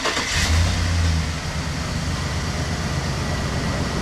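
Van's LS V8 engine running. It is strong for the first second or so, then settles to a steady idle. The AC compressor has a new clutch and bearing, and the old tick, tick, tick is gone.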